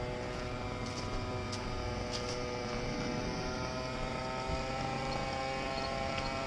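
Losi DBXL 1/5-scale RC buggy's small two-stroke gas engine running at a steady, even speed as it drives, heard close up from the car itself.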